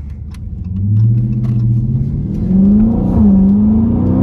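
Car engine accelerating hard, its pitch climbing, then dropping sharply on an upshift a little after three seconds in and climbing again as it pulls through the next gear.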